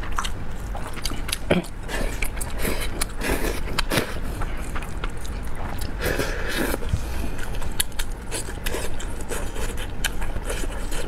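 Close-up eating sounds: chopsticks clicking and scraping against a glass bowl while stirring noodles, with chewing, and a noisy slurp from the bowl about six seconds in.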